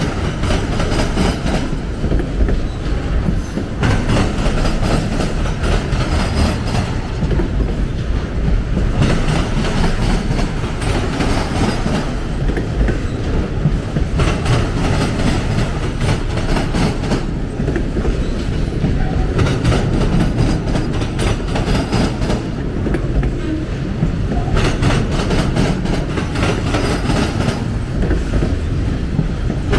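Autorack freight cars rolling slowly past close by: a steady low rumble of steel wheels on rail, with a burst of clickety-clack every five or six seconds as each car's wheel sets cross the rail joints.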